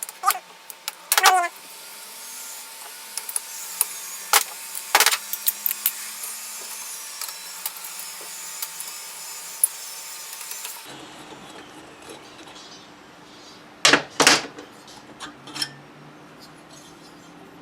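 Hand tools and metal engine parts clinking and knocking during the teardown of a scooter engine, with scattered sharp clicks and two loud knocks a little past the middle. The background changes abruptly about eleven seconds in.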